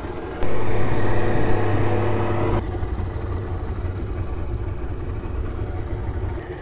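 Boat motor running steadily. It runs much louder for about two seconds starting about half a second in, then drops suddenly to a lower, even run.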